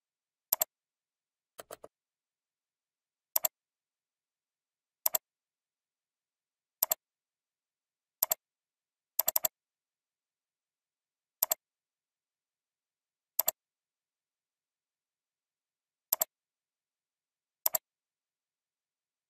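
Computer mouse clicks, each a quick press-and-release pair, about ten of them at uneven intervals one to three seconds apart, the second one fainter and a quick run of clicks about nine seconds in. Complete silence between the clicks.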